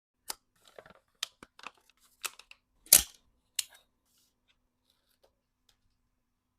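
An uneven series of about ten sharp clicks and taps, as of small hard objects being handled, set down or snapped, with the loudest about three seconds in.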